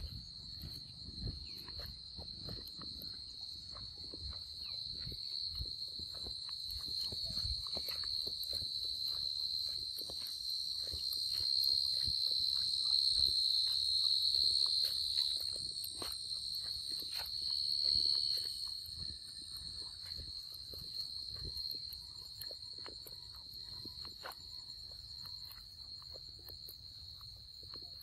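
Steady, high-pitched insect chorus that swells louder through the middle and again briefly about two-thirds of the way in, with scattered soft clicks and rustles.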